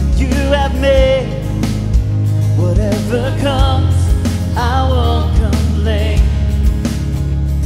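Worship band playing a praise song: sung lead vocal with strummed acoustic guitar over sustained bass and a steady drum beat.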